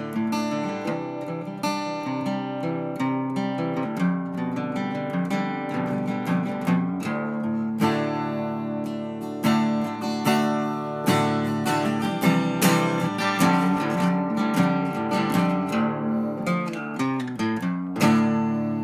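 Background music: acoustic guitar playing plucked notes and chords at a steady pace, with a louder strummed chord near the end.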